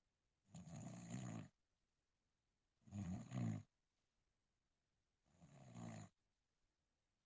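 Snoring: three snores about every two and a half seconds, each about a second long with a low buzzing tone.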